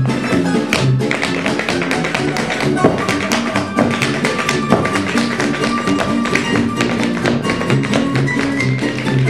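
Metal-tipped tap shoes of three dancers clicking in quick, dense rhythms on a stage floor over accompanying music with a bass line and drums.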